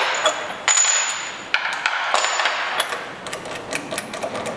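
Hand tools and steel bolts clinking and knocking against the engine's pump pulley as the holding bolts and wrench are taken off, with a brief high metallic ring early on and a run of light clicks near the end.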